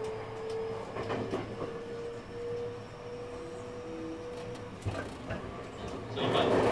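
Running sound of a JR West 223 series 2500 EMU with a Hitachi IGBT inverter drive: a steady inverter and traction-motor tone rising slightly in pitch, with a few wheel clicks over rail joints. The motor tone stops about five seconds in, and a louder sound begins near the end.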